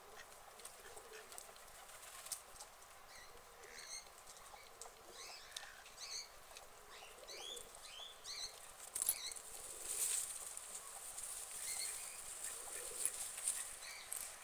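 Small birds chirping in short, high, gliding notes, many of them in quick succession through the middle, with a rush of hissing noise about ten seconds in.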